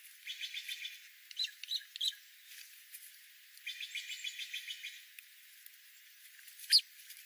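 Songbird singing: two rapid trills of evenly repeated notes, several short chirps between them, and one loud, sharp call near the end.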